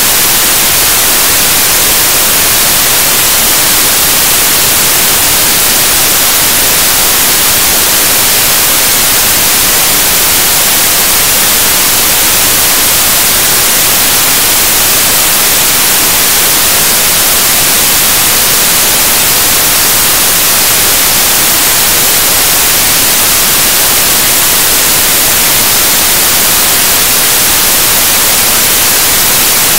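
Loud, steady static hiss, even and unchanging throughout and strongest in the high end. No voice can be heard through it, though the man on screen is talking.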